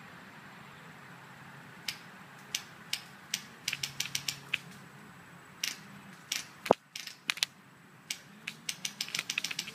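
Polar Star HPA airsoft M4 fitted with a homemade KX3-style amplifier flash hider, firing sharp cracks: a few single shots, then quick strings of several shots a second.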